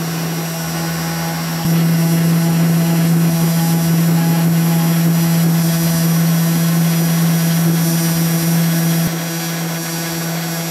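Steady whine of a desktop CNC router's DC spindle motor running as the bit carves lettering into a wooden board. It gets louder about two seconds in and drops back shortly before the end.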